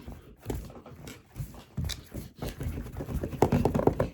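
Irregular knocks and rustling from hands moving things about close to the microphone, loudest near the end.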